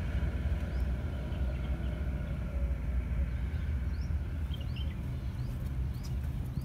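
Steady low outdoor rumble, with faint short bird chirps every second or so.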